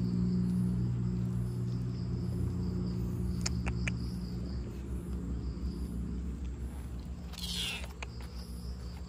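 Insects chirping in a faint, steady pulsing trill over a louder low, steady drone that fades after about six seconds. There are a few light ticks midway and a brief rustle near the end.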